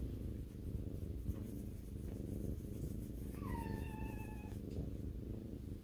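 Tabby cat purring steadily while being stroked, the low rumble close to the microphone. About three seconds in, one brief, slightly falling high note sounds over the purr.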